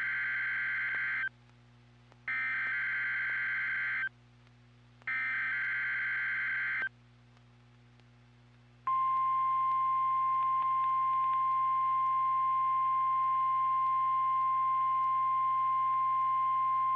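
NOAA Weather Radio emergency alert signal. Three short raspy digital data bursts, the SAME header encoding the warning, are followed about 9 seconds in by the steady, single-pitched 1050 Hz warning alarm tone, which marks a tornado warning being broadcast, here as a test.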